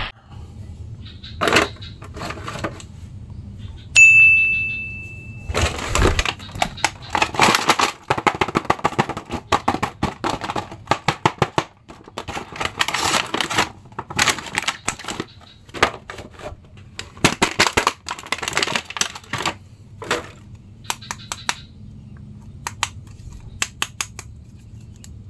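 Clear plastic blister packaging crackling and clicking in quick, irregular bursts as an action figure is worked out of it by hand. About four seconds in, a single bright ding rings for a second and a half.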